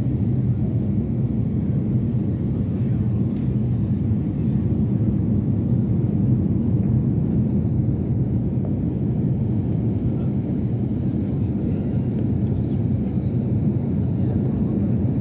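Airbus A330 airliner's jet engines: a steady low rumble that neither rises nor falls.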